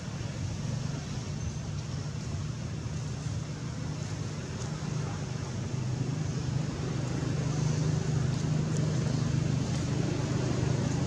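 Steady low engine hum, like a motor vehicle running, growing louder about halfway through.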